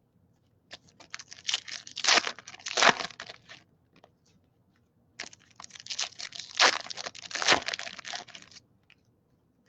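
Trading card pack wrapper being torn open and crinkled, in two bursts of crackly rustling: one about a second in, the other about five seconds in.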